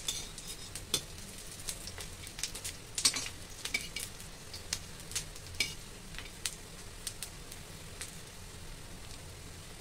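Besan pakoras shallow-frying in a little mustard oil in an iron kadhai, a light steady sizzle, while a perforated metal skimmer scrapes and taps against the pan as the fritters are turned, giving frequent sharp clicks.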